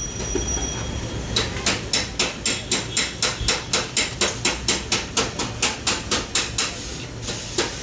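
Hammer blows struck in a fast, even rhythm, about four a second, with a short pause near the end before they resume.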